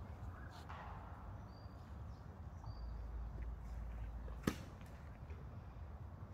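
A soft whoosh about a second in, then a single sharp knock about four and a half seconds in, over quiet woodland air with a few faint high bird chirps.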